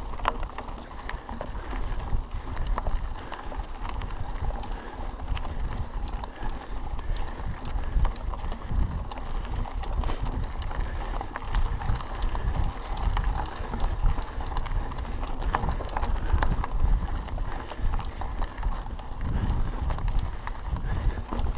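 Mountain bike climbing a dirt forest trail: tyres crunching over packed dirt and small stones, with frequent small clicks and rattles from the bike over a low, uneven rumble.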